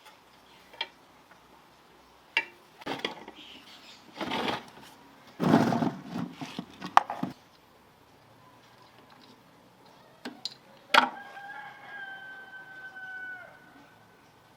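A few sharp knocks and clattering noises, then a rooster crowing once near the end, one long held call that drops slightly as it ends.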